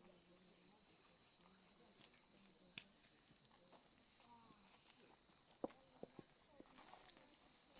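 Faint, steady high chirring of insects, with a few short sharp knocks a little over halfway through.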